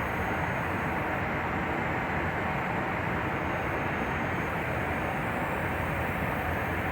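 Steady rushing noise inside an airliner cruising at altitude: air streaming past the fuselage and engine noise, even in level throughout.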